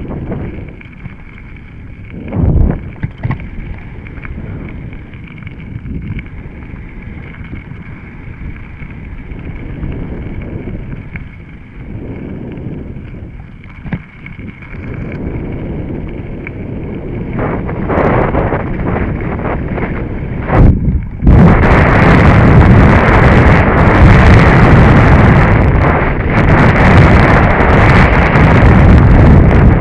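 Mountain bike riding down a dirt trail: tyres rumbling with knocks and rattles over bumps. About two-thirds of the way in the noise jumps to a much louder, harsher rushing and rattling, as on a fast rough stretch with wind on the microphone.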